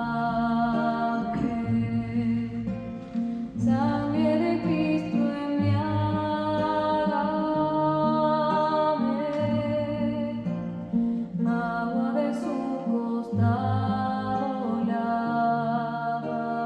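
A slow communion hymn: singing in long, held notes over acoustic guitar accompaniment.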